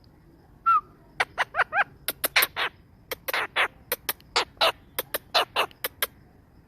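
Ringneck parrot calling. A few short pitched squawks come about a second in, then a rapid run of short, sharp screeches at about four a second.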